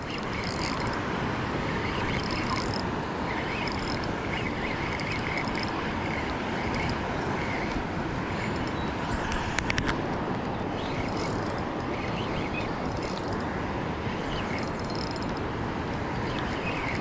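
Steady rushing roar of floodwater pouring through a river spillway, with faint bird chirps over it and a few brief clicks about ten seconds in.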